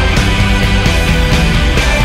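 Loud instrumental passage of a rock song, with drums hitting in a regular beat and no singing.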